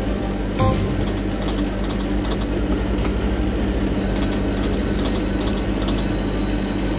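Konami Happy Blessing K-POW! Pig poker machine spinning its reels: electronic reel-spin sound effects with repeated short high ticks as the reels run and stop, over a steady low hum. A brighter sound stands out about half a second in.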